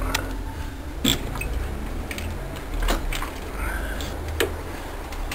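Handling noise around a motorized bicycle: four sharp clicks and knocks, spaced one to two seconds apart, over a low rumble.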